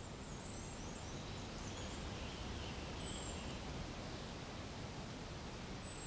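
Outdoor ambience of soft wind with small birds calling: thin, high calls that slide downward, three times (near the start, in the middle and at the end), with fainter lower chirps between them.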